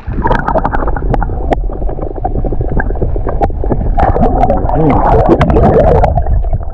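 Muffled underwater sound picked up by an action camera dipped in the water: water rushing and gurgling against the housing, with many scattered clicks and knocks.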